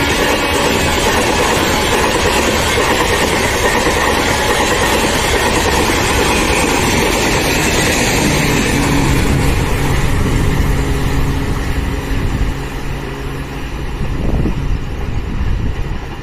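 Passenger coaches of an express train running past at speed, a loud steady wheel-on-rail noise that falls away about three quarters of the way through as the last coach passes.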